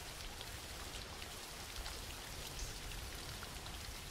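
Steady rain: a soft, even hiss with many small scattered drop ticks.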